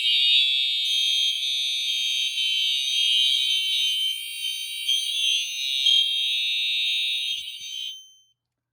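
Several fire alarm horns sounding together in a continuous, shrill high-pitched tone, then cutting off about eight seconds in.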